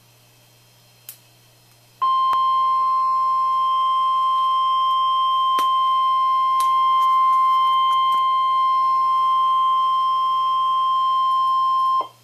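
NOAA Weather Radio warning alarm tone: a single steady high beep near 1 kHz (the 1050 Hz weather alert tone) that sounds for about ten seconds and cuts off abruptly. It signals that a warning message follows. It comes in about two seconds in, after faint static hiss and a click.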